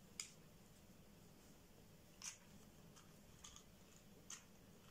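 Near silence with a few faint, short clicks, about five, from small metal earring hooks and findings being handled and hung on a card.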